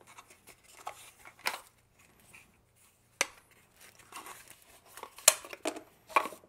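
Hands handling a small cardboard box and the packaging inside it: scattered light rustles and taps, with sharp clicks about three seconds in and just after five seconds.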